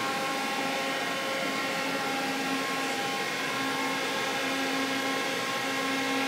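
Powered-up Mori Seiki CL-153M CNC lathe running idle: a steady machine hum with a whine made of several even tones, holding at one level throughout.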